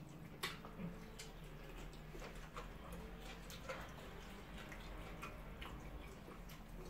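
People eating rice and stew by hand: soft, scattered wet chewing and lip-smacking clicks over a low steady hum.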